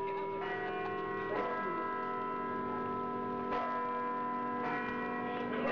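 Bell-like chimes in the music of an animated logo sting: about four struck notes, each leaving several long ringing tones layered over one another.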